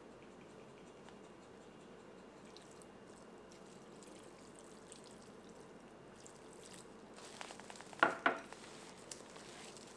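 Liquid dressing poured from a glass jug onto chopped pork sisig in a steel bowl, faint over room hiss. Near the end a gloved hand starts mixing the sisig: rustling, with two brief sharp sounds about a second before the end.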